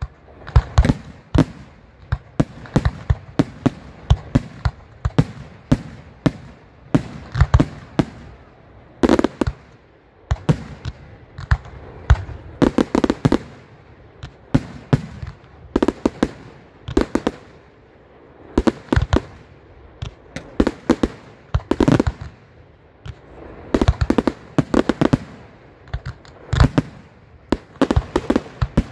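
Firework display: aerial shells bursting in a rapid, irregular barrage of sharp bangs, several going off in quick clusters with short gaps between volleys.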